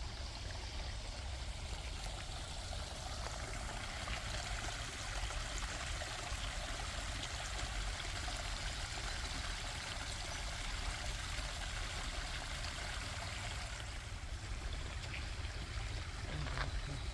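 Steady running water, an even rush without breaks, under a low rumble.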